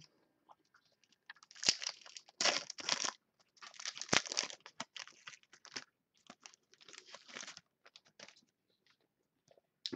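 Foil trading-card pack wrapper being torn open and crinkled by hand, in a run of irregular crackling bursts over several seconds.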